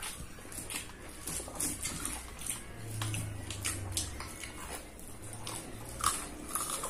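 Close-up chewing and crunching of crispy fried chicken wings, with many quick crackles as the skin is bitten and torn by hand over a paper wrapper.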